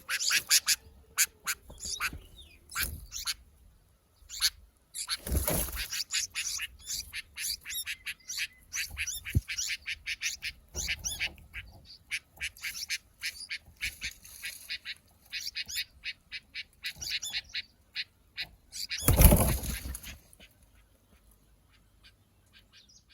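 Himalayan bulbul chicks calling in rapid, repeated short high chirps. Twice, about five seconds in and again near the end, a louder rush of noise lasting about a second rises over them, and the calls die away shortly before the end.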